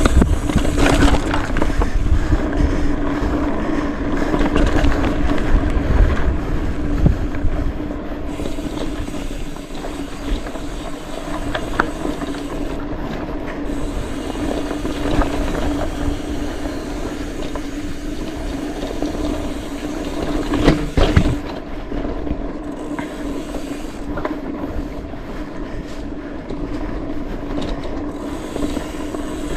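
Mountain bike riding fast down a rough dirt trail: tyres and frame rattling over the ground, with a steady buzzing tone running through. The rumble is heaviest for the first several seconds, and there are a few sharp knocks about two-thirds of the way through.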